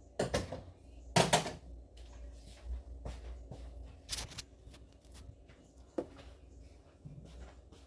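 A scatter of short knocks, clicks and rustles from objects being handled close to the camera, the loudest a quick cluster about a second in, with single knocks around four and six seconds.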